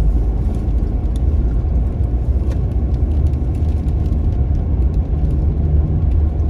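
Car driving through snow: a steady low rumble of engine and tyres, with faint scattered ticks.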